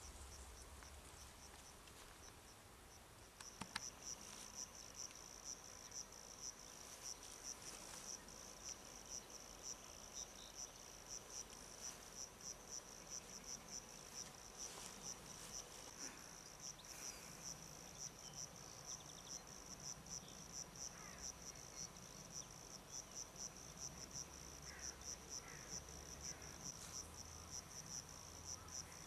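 Crickets chirping in a fast, regular, high-pitched pulsing trill. It is faint, and becomes louder and steadier a few seconds in.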